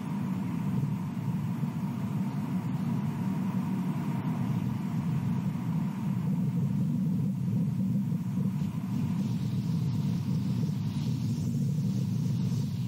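Steady low rumble of background noise, with no distinct calls or knocks, and a faint higher hiss joining about two-thirds of the way through.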